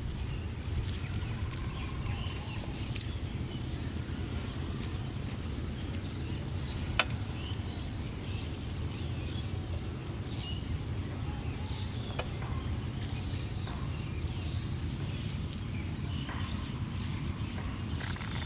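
Outdoor ambience: a steady low rumble and a steady high insect whine, with a bird giving short high descending chirps three times, plus a few scattered faint clicks.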